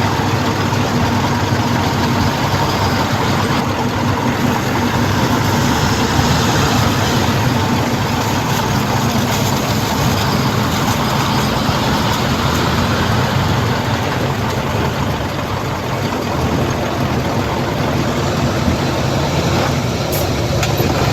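Heavy diesel engine of earth-moving machinery, a bulldozer or dump truck, running steadily with a constant low hum.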